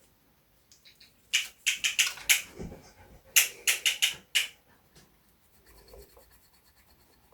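Sharp snapping clicks in two quick runs of about five each, about a second apart, quite piercing.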